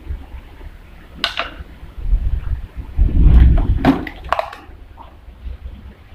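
Manual lever-operated ID-card die punch working: a sharp click, then a heavy low crunch about three seconds in as the lever is pulled down and the die cuts a card out of a laminated PVC sheet, followed by a few metal clacks.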